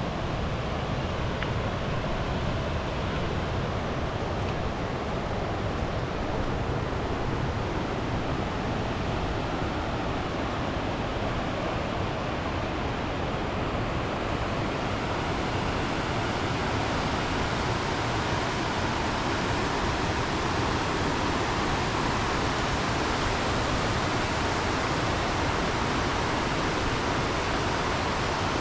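A swollen, muddy mountain river in flood rushing steadily over rocks.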